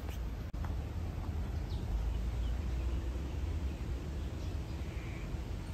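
Outdoor ambience: a steady low rumble with a few faint bird chirps scattered through it.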